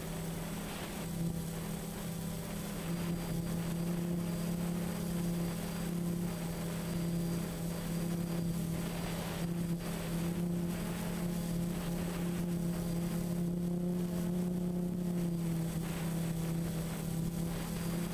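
DJI Phantom FC40 quadcopter's four brushless motors and propellers in flight, heard from the aircraft itself: a steady hum with small shifts in pitch over a hiss of air.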